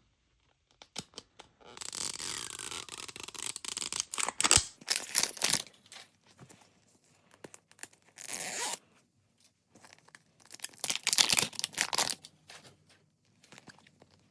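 Packaging of a mystery gift being torn open by hand: three stretches of ripping and rustling with sharp little clicks, the longest a few seconds in, a short one in the middle and another near the end.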